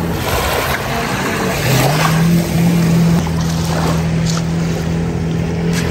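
A motorboat engine droning offshore, rising in pitch about two seconds in and then holding steady, over small waves washing onto the sand.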